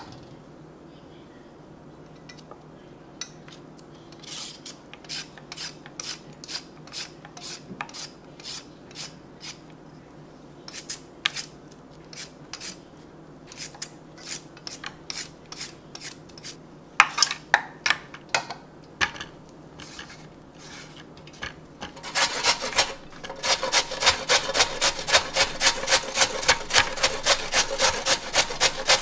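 Carrot being scraped with a vegetable peeler in short repeated strokes, about three a second. It then changes to louder, faster rasping as the carrot is rubbed up and down a metal box grater.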